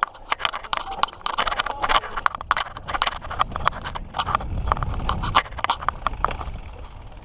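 Mountain bike rattling and clattering as it rides over rough trail: a dense run of irregular clicks and knocks, with a low rumble that swells about halfway through.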